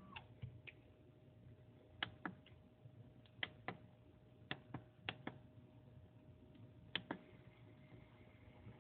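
Walthers Cornerstone HO-scale turntable's drive mechanism clicking as its bridge rotates: about fifteen sharp, irregular clicks, often two in quick succession, over a faint steady hum.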